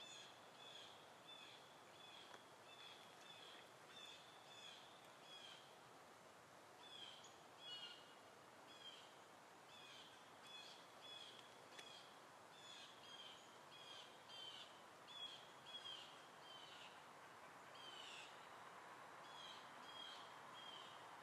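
A bird chirping faintly and repeatedly, short high chirps at about two a second with a few brief pauses, over a quiet hiss.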